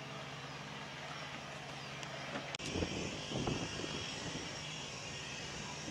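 A light propeller airplane's engine running at a distance as a steady hum. About two and a half seconds in the sound changes abruptly to uneven, gusting low noise over the engine.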